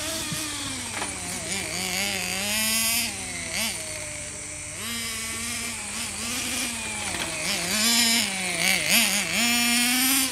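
Glow-fuel engine of a 1/8-scale Todoroki Road Ace vintage RC car running on track, its pitch rising and falling again and again as the throttle is opened and eased through the corners.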